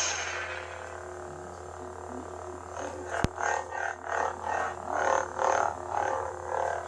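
Lightsaber replica sound board on its Luke sound font: the ignition sound tails off into a steady electronic hum. From about three seconds in, smooth swing sounds swell and fade repeatedly as the blade is moved, with a single sharp click near the start of the swinging.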